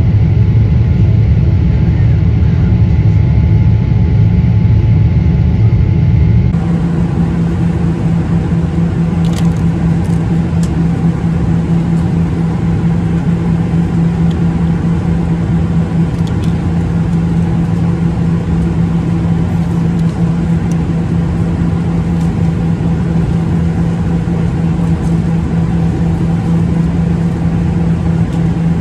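Jet airliner noise inside the cabin: a deep engine rumble during the climb-out, then, about six and a half seconds in, a steadier cabin drone with a constant hum. A few faint clicks are heard in the drone.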